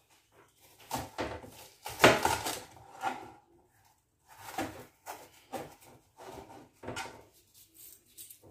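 Kitchen knife slicing an onion on a plastic cutting board: irregular knocks of the blade on the board, in clusters, the loudest about two seconds in.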